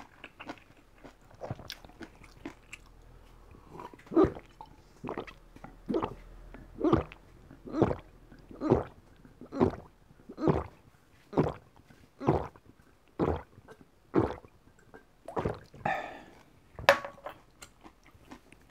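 A person gulping water from a glass, a steady run of about a dozen swallows at a little over one a second, close to the microphone.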